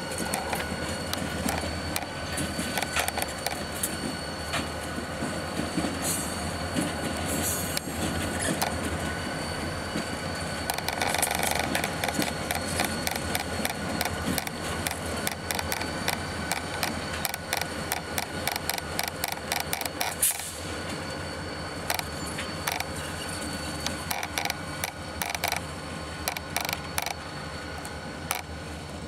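A pair of EMD GP40 diesel locomotives, each with a turbocharged 16-cylinder EMD 645 two-stroke engine, moving past. There is a steady engine rumble with a high whine over it and frequent clicks and knocks, loudest about eleven seconds in.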